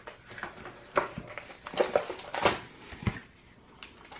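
Cardboard board-game box and its contents being handled: several short knocks and scraping rustles as pieces are lifted out.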